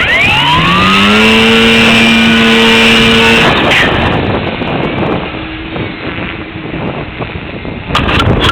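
Electric motor of a radio-controlled model aircraft spooling up to full throttle: a whine that rises quickly, holds steady for about three seconds, then stops abruptly. Wind noise buffets the microphone throughout.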